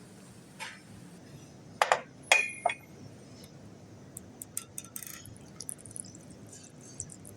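Tableware clinking: three sharp clinks in quick succession about two seconds in, after a softer one, then a scatter of light ticks and taps.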